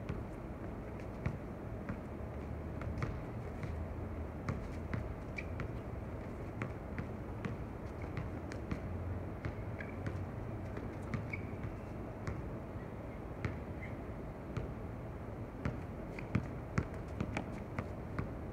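Basketball being dribbled on an outdoor hard court: irregular sharp bounces, coming closer together near the end, over a steady low hum.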